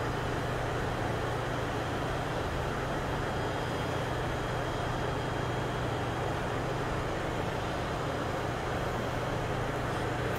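Steady running noise inside a Korail commuter electric train car: an even rumble with a low hum underneath.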